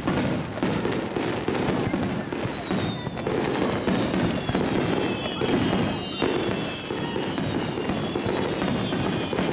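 Fireworks display: a dense, continuous run of bursts and crackling, with several thin whistling tones slowly falling in pitch from about three seconds in.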